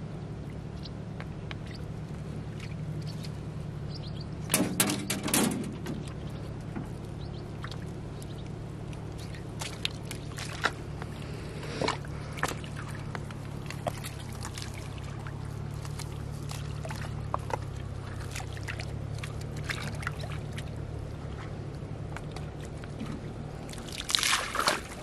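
Water splashing and pouring in short bursts, about five seconds in and again near the end, where water is flung from a metal bowl onto the river. Scattered small splashes and knocks fall between the bursts, over a steady low hum.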